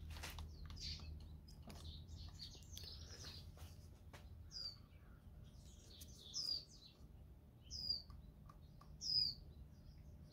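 Small bird chirping: scattered high chirps, then a short high call that drops in pitch, repeated about every one and a half seconds, over a steady low hum.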